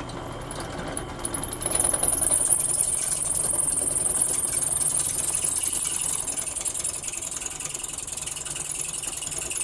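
Benchtop drill press running slowly; about two seconds in, the bit bites into the broken steel gearbox bolt and a steady high-pitched squeal of cutting rises over the motor hum. The bit is one the operator believes he dulled on the first hole, and it is wandering.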